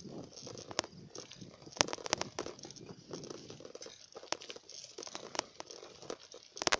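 Irregular sharp clicks and crackling rattles from a phone sitting loosely on moving bicycle handlebars, over a low rumble of the ride.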